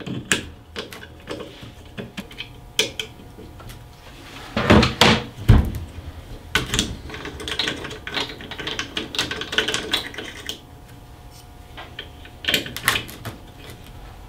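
Irregular clicks, taps and knocks of hand work on a moulded case circuit breaker as its terminal lugs are taken out with an Allen key, the loudest knocks coming about five seconds in.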